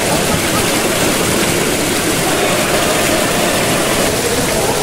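Steady rushing of a waterfall, an even wash of water noise with no breaks.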